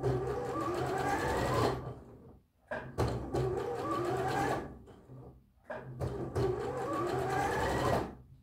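A bernette b38 computerized sewing machine stitching a bias binding onto a neckline in three short runs of about two seconds each, stopping briefly between them as the fabric is guided; the motor's whine rises in pitch as each run speeds up.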